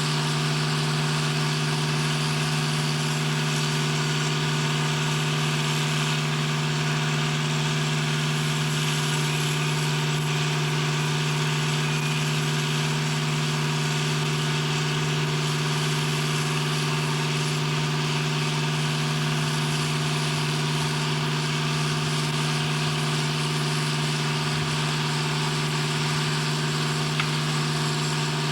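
Steady, unchanging drone of running industrial machinery: a strong low hum with a constant noise over it.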